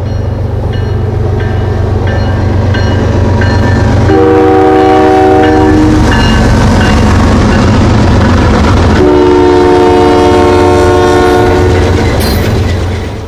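Diesel freight train led by a GE ES44DC locomotive passing close by, engines rumbling steadily, its horn sounding two long chords, the first about four seconds in and the second, longer one about nine seconds in.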